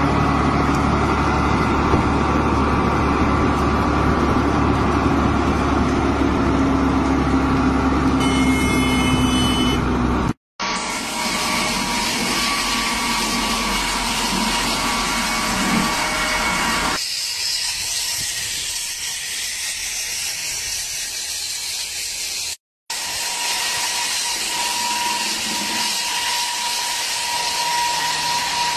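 A heavy dump truck's engine running steadily as it drives past. After a cut, a diamond wire saw cutting through concrete under a water spray gives a steady hiss, joined about 23 seconds in by a thin steady whine.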